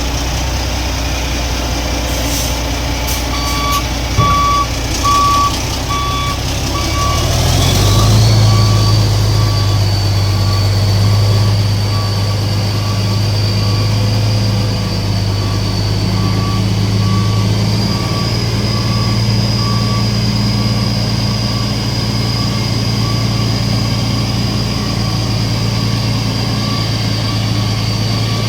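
CAMC CM6D28 diesel truck engine running, its speed stepping up about eight seconds in, with a steady high whine from then on. A short beep repeats about every two-thirds of a second from a few seconds in and fades away by the middle.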